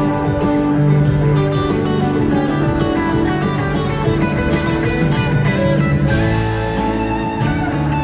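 Live rock band playing a jam, with guitar lines over bass and drums.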